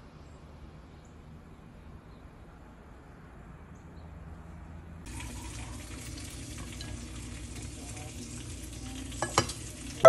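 A pot of rice boiling under a glass lid: a steady bubbling hiss that starts suddenly about halfway through, after a faint low hiss. Near the end come two sharp clinks as the glass lid is taken by its knob.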